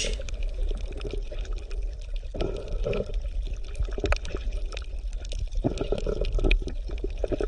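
Water bubbling and gurgling, with many small irregular pops and clicks over a steady low rumble.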